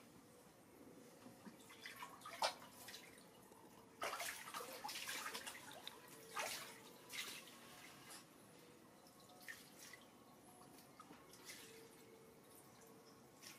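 Water splashing and sloshing as a monkey swims through a shallow inflatable paddling pool: a sharp splash, then a burst of splashing about four seconds in, followed by scattered smaller splashes.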